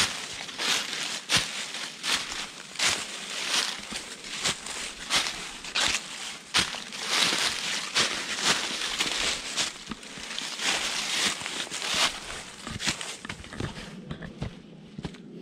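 Footsteps crunching through a thick layer of dry fallen leaves on stony ground, at a steady walking pace of about two steps a second, growing fainter near the end.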